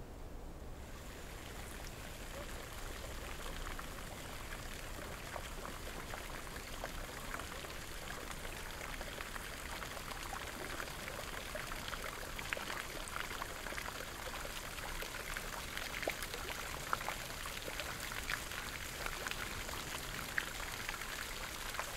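Spring-fed nymphaeum fountain, its water jets splashing and pouring steadily, coming in about a second in.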